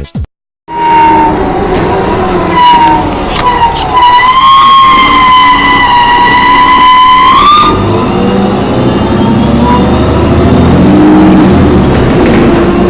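Loud, wavering high-pitched screech on board a New Flyer D40LF diesel bus, which the uploader puts down to either the brakes or the transmission. It rises sharply just before it cuts off, about three-quarters of a second past the midpoint. The bus's drivetrain then keeps running with a low rumble and a slowly rising whine.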